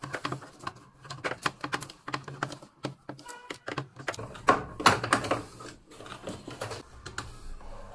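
Irregular small clicks and snaps of plastic parts as a washing machine's lid safety switch is fitted back together by hand, with a few louder clicks about halfway through.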